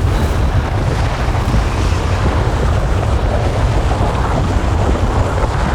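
A loud, steady, low rumbling roar with a dense noisy texture and no distinct hits.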